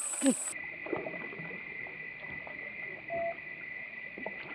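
Steady, high-pitched insect drone over quiet outdoor ambience, with a brief short note about three seconds in.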